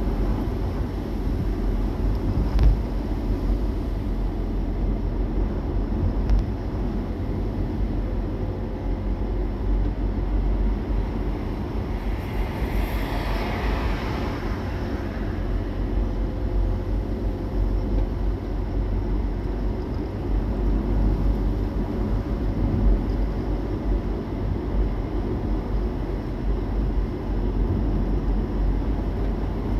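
Steady low road rumble of a vehicle being driven. Another vehicle passes about 13 seconds in, its sound swelling and fading.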